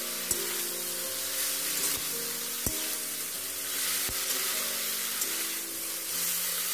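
Vegetables and soya chunks sizzling in oil in a metal kadai while a metal spatula stirs them, with a few sharp taps of the spatula against the pan. This is the sautéing of the ginger-garlic and cumin paste until its raw smell cooks off. Soft background music plays underneath.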